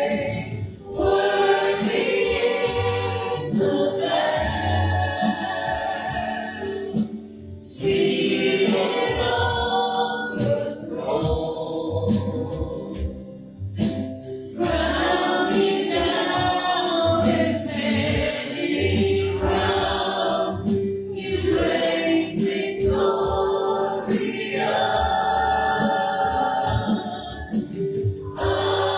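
Worship music: a group of voices singing a worship song in sustained phrases over instrumental accompaniment with a steady bass.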